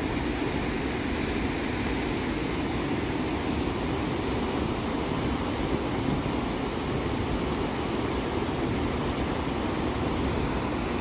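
Whitewater of Bow Falls on the Bow River pouring over the falls: a steady, low rushing noise that holds even throughout.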